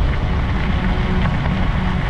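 Bicycle tyres rolling fast over a loose gravel road on a descent, mixed with wind buffeting the microphone: a steady, loud, deep rushing rumble.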